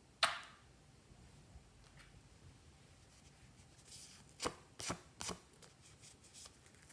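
Hands handling small plastic squeeze bottles: a sharp click a moment in, then a soft rustle and three quick clicks near the end.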